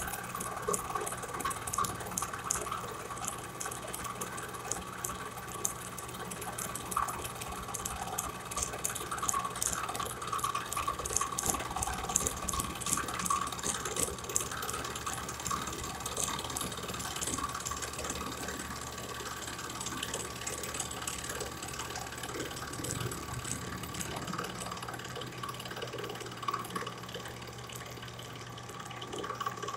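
A handheld electric power tool running with a steady whine while its bit cuts into a wooden airgun stock, with many small ticks of wood chips throughout.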